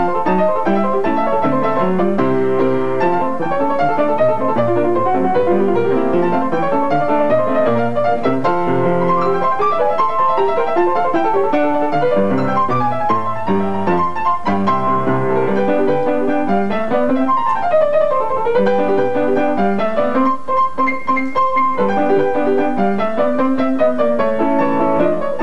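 Instrumental background music with piano to the fore, playing steadily.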